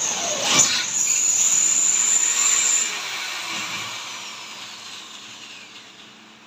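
Handheld power drill running at speed against a wood-plastic composite (WPC) fluted ceiling panel, a steady high whine for about three seconds, then slowing with a falling pitch as it fades out.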